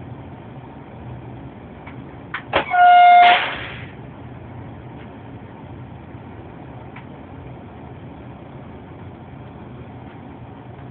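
Steady running noise in the driver's cab of a Minuetto regional train. About two and a half seconds in come two quick clicks, then the train's horn sounds once for about half a second, a single steady note and the loudest thing heard.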